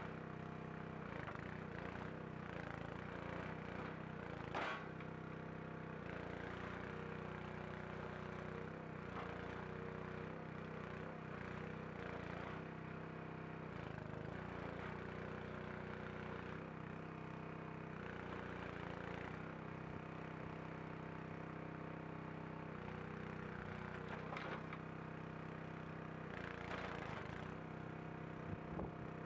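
Engine of a hydraulic bandsaw mill running steadily while the hydraulics roll a large log over on the deck, its note shifting a little as the load changes. There is a single sharp knock about four and a half seconds in, with a few lighter clatters later.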